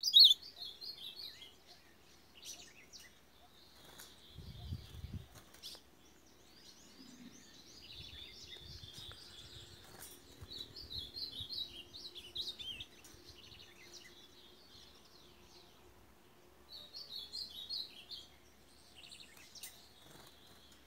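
Young male ultramarine grosbeak (azulão) singing: short, high warbled phrases repeated several times with pauses of a few seconds between.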